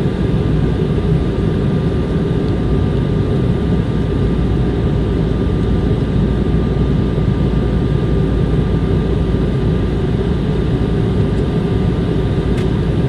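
Steady cabin noise aboard an Airbus A320 in flight: a loud, even rumble of jet engines and airflow, with faint steady tones above it.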